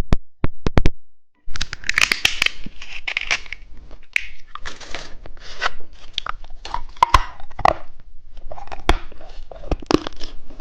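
Plastic lollipop wrapper being torn open and crinkled by hand: a few sharp clicks, then from about a second and a half in, continuous dense crinkling and crackling.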